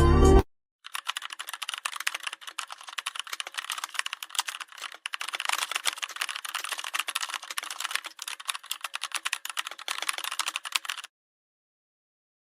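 Rapid, irregular clicking for about ten seconds, like keys being typed, cutting off abruptly near the end. A short tail of music ends about half a second in.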